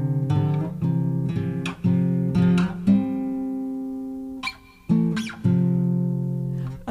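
Instrumental music: solo acoustic guitar picking single notes and chords that ring out, with one chord about three seconds in left to fade before the picking starts again.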